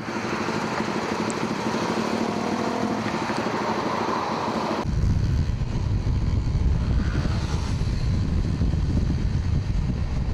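Motorcycle engine pulling away and accelerating, its pitch rising over the first few seconds. About halfway through it is suddenly buried under heavy wind rumble on the microphone as the bike rides at speed.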